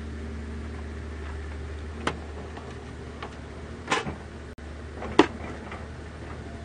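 Three sharp clacks and knocks of a portable gas stove and its hard carrying case being handled and packed away, about 2, 4 and 5 seconds in, the last the loudest, over a steady low hum.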